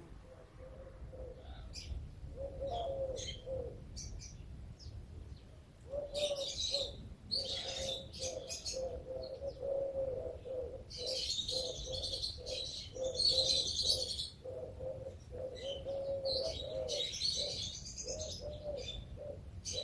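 Birds calling: a low, steady, repeated call with higher chirping over it, getting louder about six seconds in.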